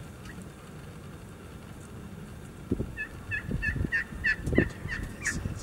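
Wild turkeys calling: about three seconds in comes a run of roughly eight short, evenly spaced yelps, about three a second, with low rumbling thumps underneath.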